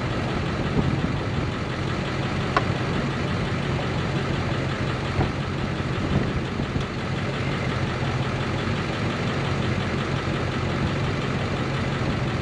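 Steady low mechanical hum, even and unbroken, with a faint click about two and a half seconds in.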